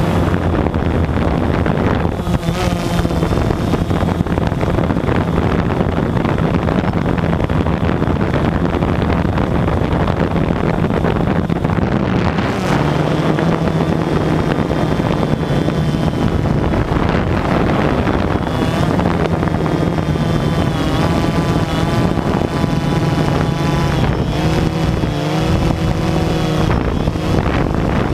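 DJI Phantom quadcopter's motors and propellers buzzing steadily, heard close up from the camera on board, the pitch wavering as the drone flies.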